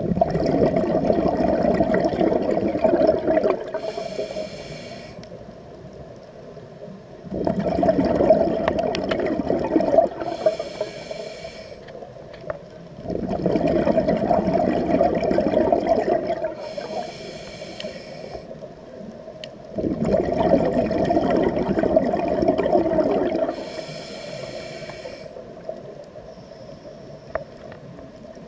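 Scuba diver breathing through a regulator underwater, four breaths in all. Each breath is a loud burst of exhaled bubbles lasting about three to four seconds, followed by a short hiss as air is drawn through the demand valve, repeating roughly every six and a half seconds.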